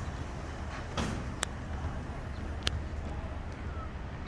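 Urban street ambience with a steady low traffic rumble, broken by three short sharp clicks or knocks in the first three seconds.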